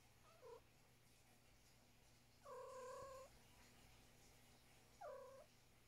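A domestic cat calling quietly three times: a short call falling in pitch, then a steady call lasting about a second, then another short falling call.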